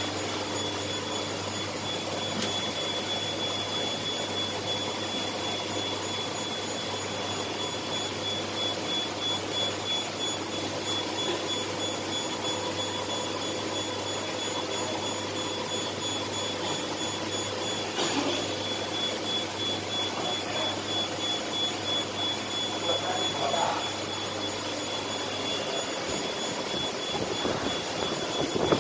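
Steady roar of power-plant machinery heard from inside the control room, with a thin high whine over it and a low electrical hum that drops out near the end.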